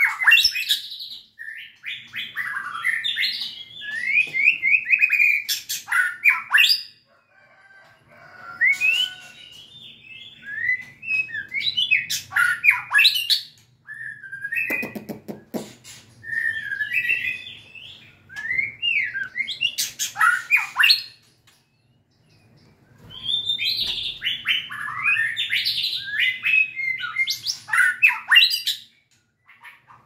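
White-rumped shama singing: bursts of rich, varied whistled phrases and rapid trills, broken by short pauses, with a few sharp clicks among the phrases.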